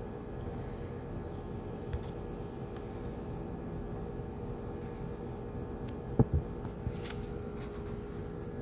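A steady mechanical hum with a few constant tones, and two short knocks about six seconds in.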